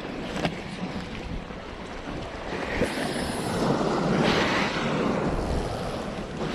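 Sea waves washing against the shore rocks, with wind buffeting the microphone; a louder surge of water builds about three seconds in and peaks near four seconds.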